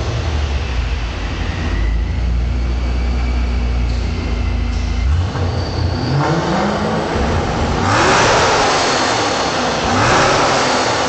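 Ford Mustang engine and exhaust rumbling low and steady, then revved repeatedly from about five seconds in, the pitch rising with each rev and the exhaust growing louder near the end.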